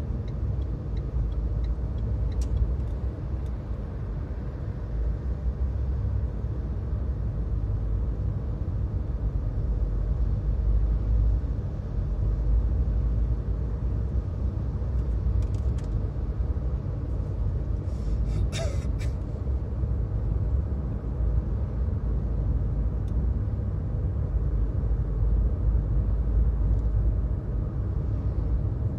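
Steady road noise from a moving car: a continuous low rumble of engine and tyres, with two quick sharp clicks about two-thirds of the way through.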